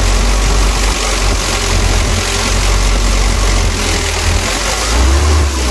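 Kia K3000 light truck's diesel engine idling steadily, heard up close over the open engine bay.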